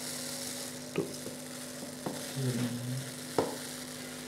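Dry vermicelli being crushed by hand in a ceramic bowl: a fine crackling of brittle strands breaking, with a few sharper snaps.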